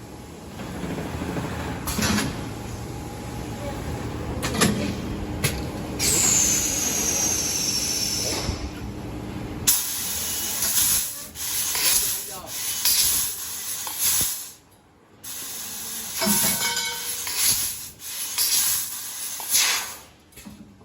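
Fiber laser tube cutting machine at work: the cutting head's assist gas hisses in repeated bursts as it pierces and cuts. Sharp clicks come in between, and a brief high falling whine comes about six seconds in.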